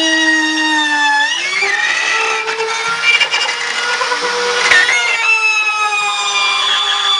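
Electric power tool cutting wood: a steady high motor whine that sags in pitch under load, with a rougher, noisier stretch of cutting in the middle before the whine settles again.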